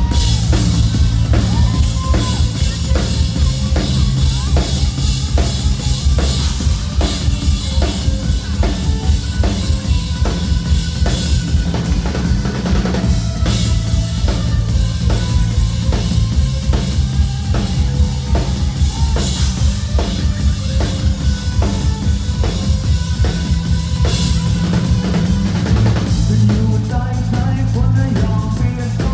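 Rock band playing an instrumental passage: a drum kit with kick and snare keeps a steady beat over heavy bass.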